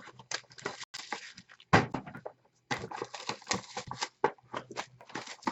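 Irregular crinkling, rustling and clicking of trading-card packaging and cards being handled, with a sharper knock a little under two seconds in.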